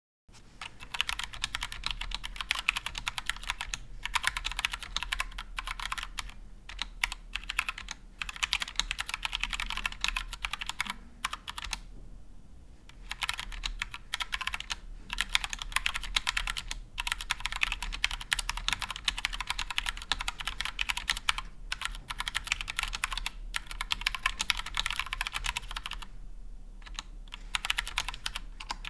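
Typing on a GMMK Compact mechanical keyboard with Gateron Brown tactile switches: fast, continuous runs of keystrokes with a couple of brief pauses.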